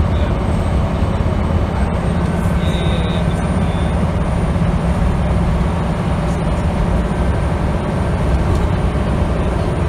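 Scania L94UB single-deck bus's diesel engine running at a steady pace with road and tyre noise, heard from inside the passenger saloon.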